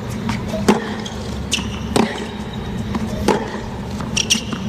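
Tennis racquets striking the ball back and forth in a baseline rally on a hard court, a sharp hit about every 1.3 seconds.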